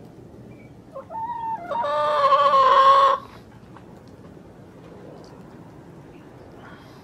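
Rooster crowing once, a short opening note about a second in followed by a long held final note that cuts off sharply.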